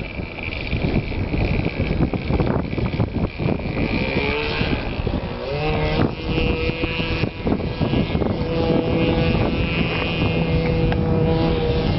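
Wind buffeting the microphone, with the two-stroke OS 46 LA glow engine of an RC model plane running. Its note rises about halfway through, then holds steady.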